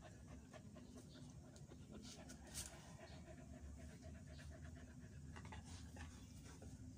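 Faint breathing and small shuffling sounds of day-old cocker–chow mix puppies stirring on a blanket, over a low steady hum, with one brief sharp sound about two and a half seconds in.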